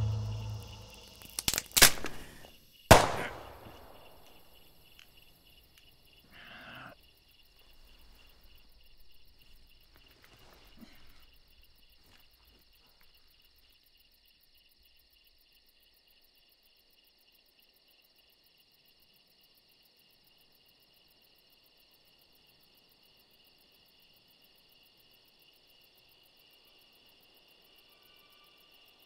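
Three sharp cracks in the first three seconds, the last with a short echoing tail, followed by a few faint rustles and then a faint steady high chirring of insects.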